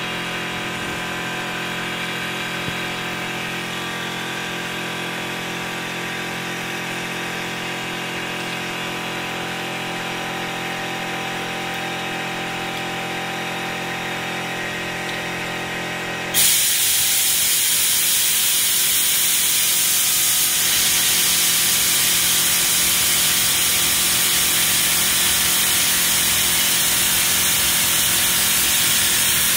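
Compressed air rushing through an air nozzle and flowmeter over a steady hum with several held tones. About halfway through, the flow opens up suddenly into a much louder, higher hiss that holds steady.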